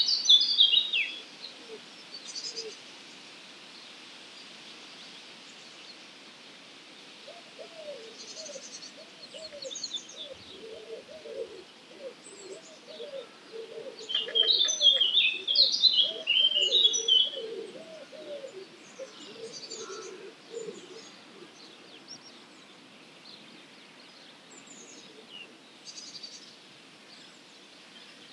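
Wild birds at dawn: loud bursts of high twittering song right at the start and again about halfway through, with fainter high calls scattered between. Through the middle runs a long series of low, repeated cooing notes from another bird.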